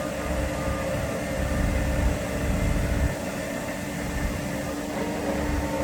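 Vehicle engine running with a steady hum and a low rumble; the rumble drops off about three seconds in while the hum carries on.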